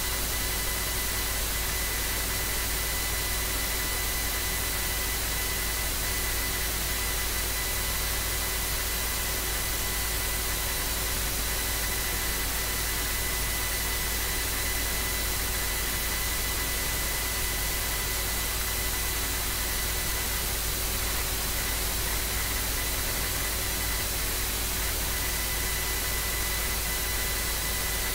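Steady electrical hiss with a faint high whine and a low hum, unchanging throughout: the self-noise of a recording microphone or sound input with nothing else being recorded.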